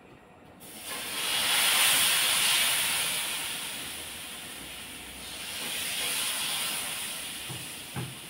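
Ragi dosa batter sizzling as it is poured onto a hot flat dosa pan, starting abruptly about half a second in, loudest early on and swelling a second time a few seconds later; a soft knock near the end.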